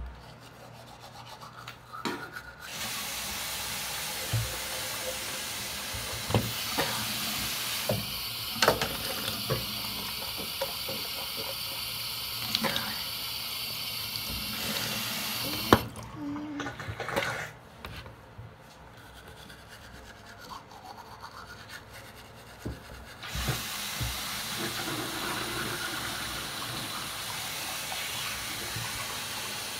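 Bathroom tap running into the sink during tooth-brushing with a manual toothbrush: the water comes on about 3 seconds in, cuts off suddenly about 16 seconds in, and runs again from about 23 seconds in. In the quieter gap there are scattered small knocks and brushing scrapes.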